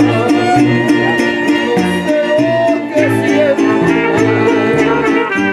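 Music from a small string ensemble: a violin melody over strummed guitars and a stepping bass line, with a steady beat.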